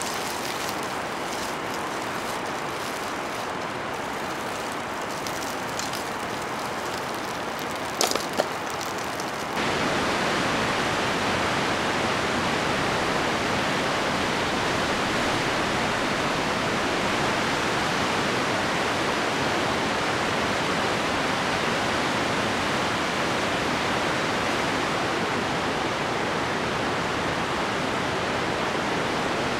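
Rushing white-water river rapids, a steady, unbroken roar of water. In roughly the first third the sound is softer, with scattered crackles and two sharp clicks about eight seconds in; then it jumps up to the full, even rush of the rapids.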